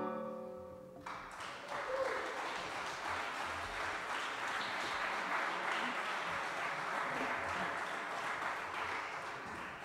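The band's final chord dies away, then an audience applauds, the clapping fading out near the end.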